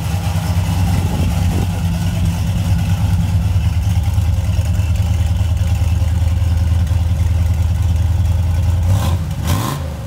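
Older pickup truck's engine idling steadily with a deep, even rumble, running with nobody in the cab. A couple of short knocks come near the end.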